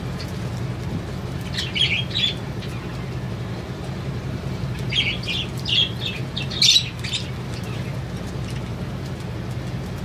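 Budgerigars chirping and squawking in short bursts. One cluster of calls comes about two seconds in, and a longer one runs from about five to seven seconds, loudest near the end of it. A steady low hum sits underneath.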